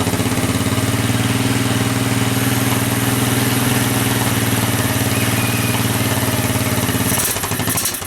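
Honda 200SX's single-cylinder engine running steadily just after starting, choke partly pulled. About seven seconds in it begins to stumble and falter, which the owner puts down to fuel starvation from a temporarily placed gas tank.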